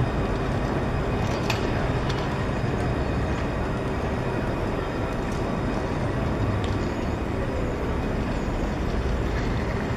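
Steady city street noise with the rumble of traffic and a tram running across a bridge.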